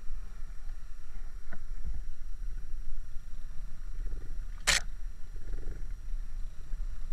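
Small 90cc four-stroke trail bike engines running at low speed on a rough dirt track, a pulsing low rumble. A single sharp knock cuts through about two-thirds of the way in.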